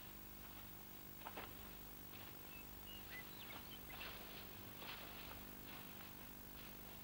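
Faint birds chirping, a few short high chirps between soft rustling noises, over the steady hum and hiss of a 1950s film soundtrack.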